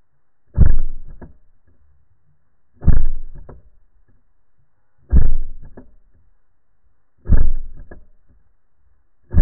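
Air pistol fired underwater, heard through the water: four muffled shots a little over two seconds apart, each a sudden bang that fades within about half a second, with a fifth shot starting right at the end.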